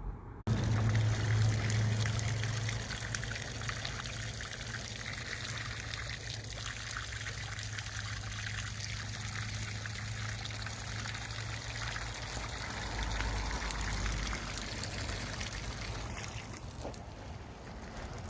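Water pouring and trickling steadily, over a low steady rumble. It starts about half a second in.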